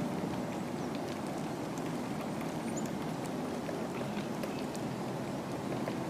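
Great tit pecking at a hanging crow's wing: faint, scattered light taps over a steady low background rumble.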